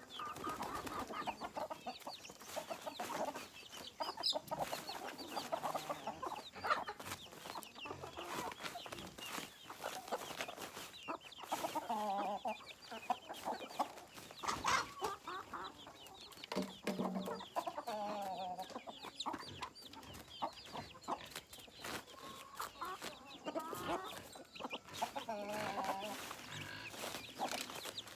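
A flock of chickens clucking and calling continuously, many birds at once, with frequent short taps and clicks among the calls.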